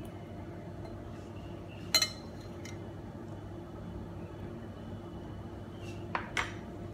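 Clinks against a clear glass bowl of cut fruit, one sharp ringing clink about two seconds in and two quick ones near the end, over a steady low hum.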